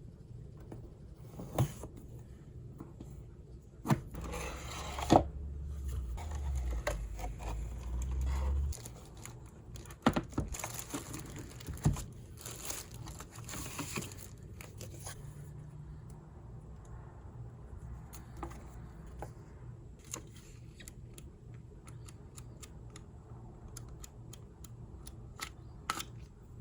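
Unboxing a mechanical keyboard: packaging being handled and opened, with crinkling and tearing of wrapping, interrupted by scattered clicks and knocks of the box and contents.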